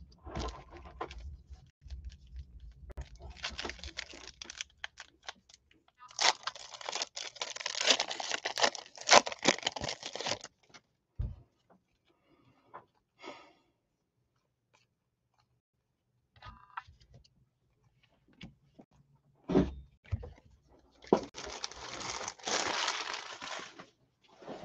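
Plastic foil trading-card pack wrappers crinkling and tearing in two spells of a few seconds each, with light clicks and a couple of dull knocks from cards and packs being handled in between.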